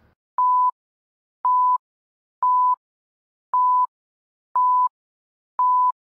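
Countdown timer beeps: six short, identical electronic beeps, one a second, each starting with a small click.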